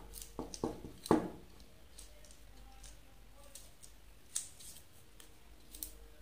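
Hands handling a copper-wire coil and a strip of tape on a wooden ring: a few light clicks and taps, the loudest about a second in, then fainter ticks.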